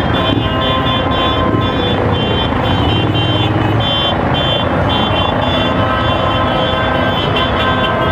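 A large pack of motorcycles and a pickup truck running in a slow procession, a dense engine rumble, with high beeps repeating over it.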